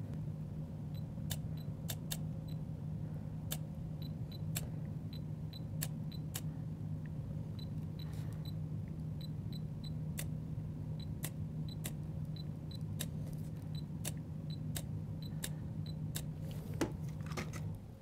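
Olympus OM-D E-M1 Mark III shutter firing single frames again and again at irregular intervals, a couple dozen clicks, over a steady low hum. A louder handling noise comes about a second before the end.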